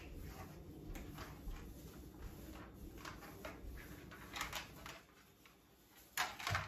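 Faint handling noises with light clicks and rustles as a round dish is set down at the base of an artificial Christmas tree, then a couple of louder knocks near the end.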